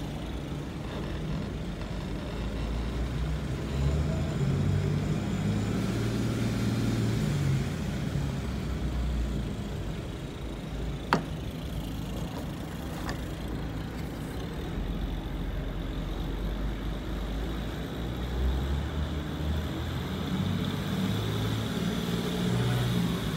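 Twin inboard engines of a 2001 Carver 444 motor yacht, still cold, running in neutral and brought up in revs twice, to about 2,200 rpm. Two sharp clicks come partway through.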